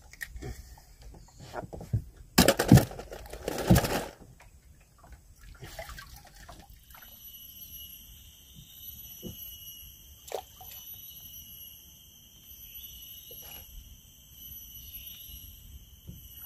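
Water splashing loudly for about a second and a half, a couple of seconds in. Then a steady, high-pitched whine of several tones sets in and keeps going.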